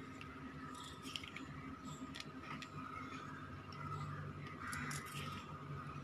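Faint, irregular light clicks and clinks of a stack of bangles on a moving wrist, over a faint steady hum.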